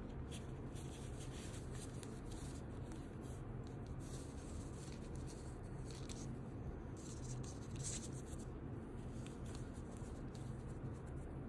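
Faint scratching and rustling of a crochet hook and yarn being worked by hand, over a low steady hum.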